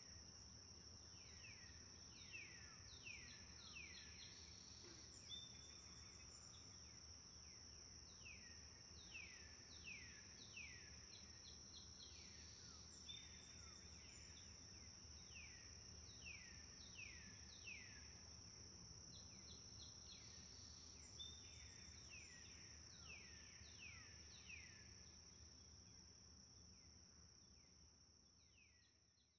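Faint countryside ambience: a steady high-pitched insect trill throughout, with birds calling in quick chirps that drop in pitch, coming in clusters, over a faint low rumble.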